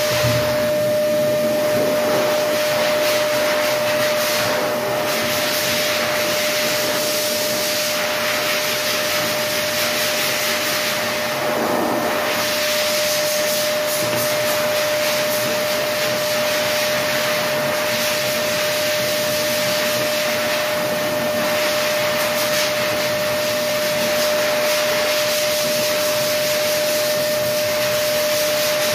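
A motor-driven machine running steadily: an even hiss with one constant hum tone, unbroken throughout.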